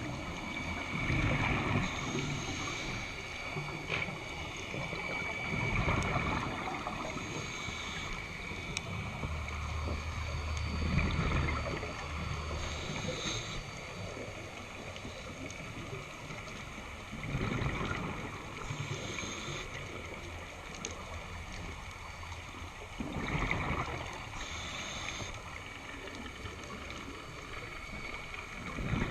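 Scuba diver breathing through a regulator underwater. Each breath is a hissing inhale, followed a few seconds later by a rumbling gush of exhaled bubbles, and the cycle repeats about every five to six seconds.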